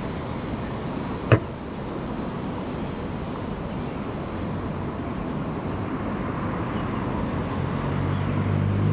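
Steady road traffic noise on a city street, with one sharp clack about a second in. Near the end a nearby vehicle's engine hum grows louder as it approaches.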